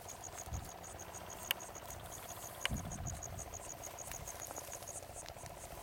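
Insect chirping in a steady, even series of short high-pitched pulses, several a second, with a lower pulsing drone underneath; typical of field crickets in summer.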